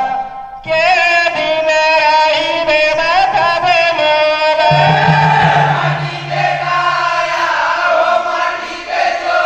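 Male voices singing a Panthi folk chant: one voice leads with a wavering melody, then about halfway several voices join in a fuller chorus over a low held note.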